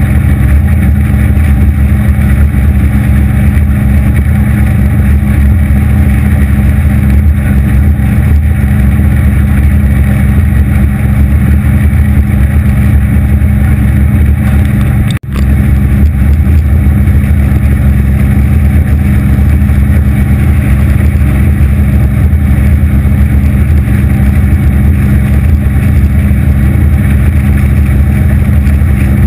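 A 250 hp Evinrude V6 two-stroke outboard driving an aluminium Anytec 750 SPD boat at a steady cruising speed: a constant low engine hum under a rush of wind and water. The sound drops out for a split second about halfway through.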